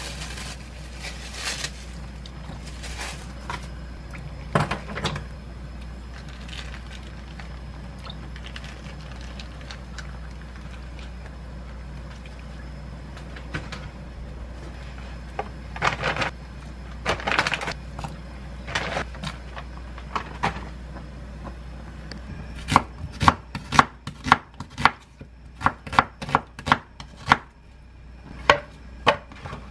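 Kitchen knife slicing an onion on a wooden cutting board: a quick run of sharp taps, about two a second, in the last quarter. Before that, scattered clicks and rustles of food being handled over a steady low hum.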